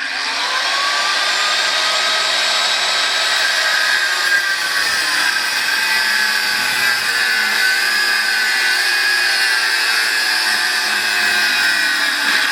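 Old Black & Decker angle grinder with a thin 1 mm cut-off disc cutting through metal stock. It starts abruptly and runs steadily with a high whine that sags slightly in pitch as the disc bites.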